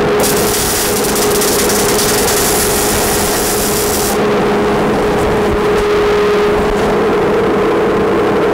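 Gas-shielded MIG welding arc crackling steadily for about four seconds and then stopping, over the steady hum of a dust collector running as a fume extractor.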